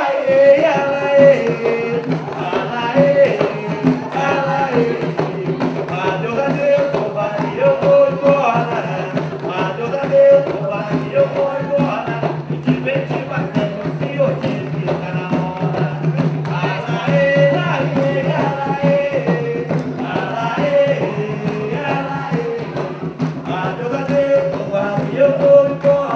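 Jongo music: a lead voice sings over barrel drums played by hand, with a steady beat throughout.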